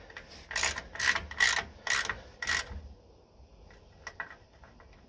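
Ratchet wrench with a 10 mm socket tightening the oil strainer cover plate nuts on a VW air-cooled flat-four: five quick bursts of ratchet clicking about half a second apart, then only faint ticks.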